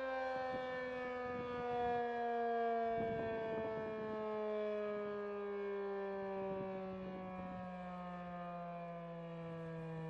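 Federal Signal 2001-SRNB rotating mechanical warning siren winding down at the end of its one-minute alert, its pitch falling steadily.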